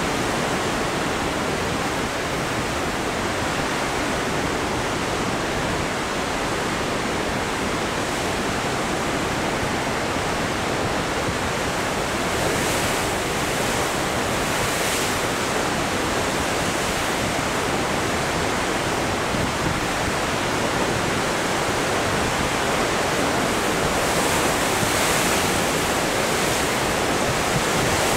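Heavy ocean surf breaking over rocks: a steady rush of foaming white water, with waves crashing a little harder about halfway through and again near the end.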